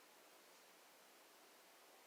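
Near silence: a faint steady hiss, the quiet pause between a sleeping dog's snoring breaths.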